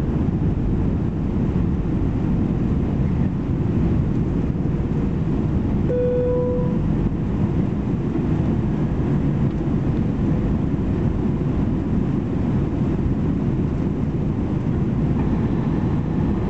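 Steady cabin noise of an Airbus A320-214 on approach, heard from a seat over the wing: a dense low rumble of the CFM56 engines and airflow. A short, clear tone sounds once, about six seconds in.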